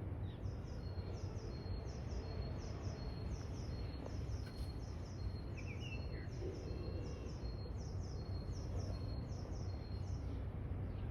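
Birds calling over a steady low background rumble: a high, thin chirp repeats very evenly about twice a second, with a brief separate call about six seconds in.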